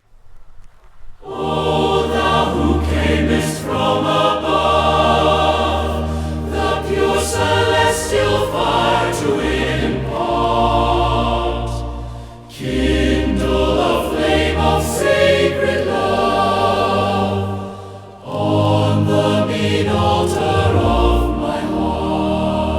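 Choir singing a slow hymn in long sustained phrases. It comes in about a second in, with two brief dips between phrases.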